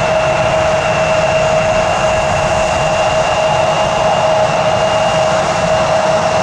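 Jet airliner engines running steadily: a loud, even rushing noise with a constant whine and a fainter higher whine above it.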